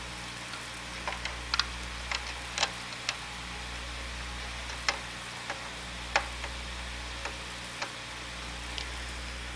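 About a dozen light, sharp clicks at irregular intervals over a steady low hum.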